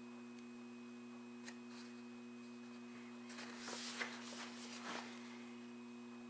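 Paper pages of a booklet being turned and handled, a crisp rustle a little past halfway, over a steady low hum.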